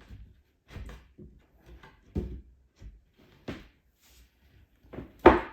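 Panels of an IKEA Kullen chest of drawers knocking and bumping as they are handled and fitted together during flat-pack assembly: a run of short, separate knocks, the loudest one near the end.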